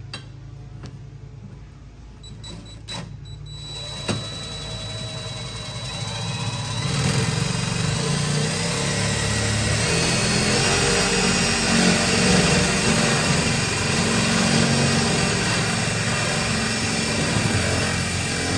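DeWalt cordless drill boring through a steel seat bracket with a lubricated bit. After a few clicks, the drill runs from about four seconds in and cuts steadily and louder from about seven seconds on.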